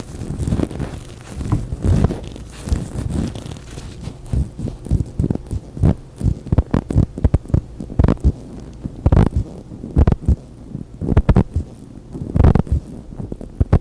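Latex gloves being handled and rubbed, giving an irregular run of soft pops and thumps that gets denser from about halfway through.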